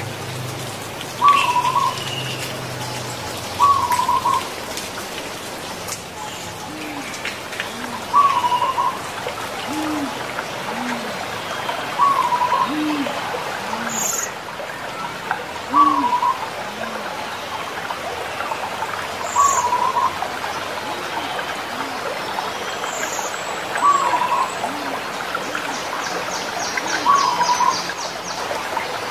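Zebra doves (perkutut) cooing: a short call repeats about every three to four seconds, eight times, with softer, lower coos between the calls through the middle of the stretch, over a steady background hiss.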